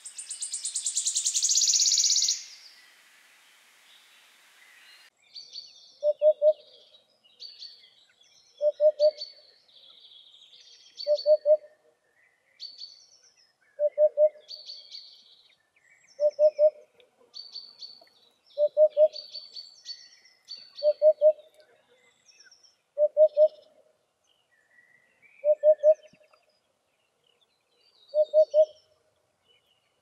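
A wood warbler's song in the first couple of seconds: a trill that quickens and swells into a shivering trill. Then, from about six seconds in, a Eurasian hoopoe gives its low, soft 'oop-oop-oop' hooting phrase ten times, about every two and a half seconds, with smaller birds chirping faintly higher up between the phrases.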